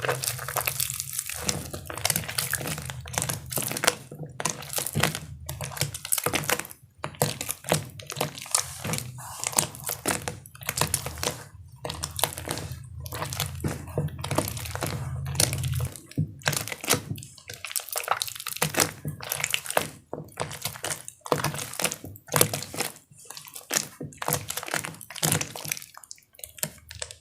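Star-shaped blocks of gym chalk being crushed and worked in water: a quick, uneven run of wet crunching and crumbling.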